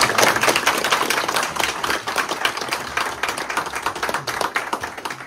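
A group of people clapping: fast, dense hand claps that thin out and stop near the end.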